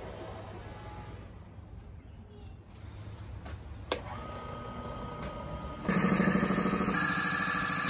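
Wood lathe running with a spalted oak blank spinning, at low level; then, about six seconds in, a spade bit fed from the tailstock drill chuck starts boring into the end of the spinning blank, with a sudden loud, rough, buzzing cutting noise.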